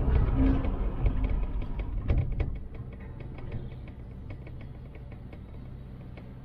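Cable car cabin running over a lift tower's sheaves: a low mechanical rumble and clatter, with a louder knock about two seconds in. It then settles to a quieter rumble with light ticking about three times a second.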